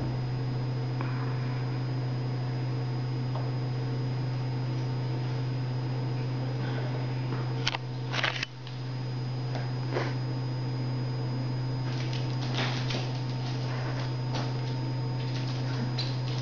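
Steady low electrical hum with a faint high whine, with a few scattered soft clicks and taps; the loudest is a short cluster of taps about eight seconds in.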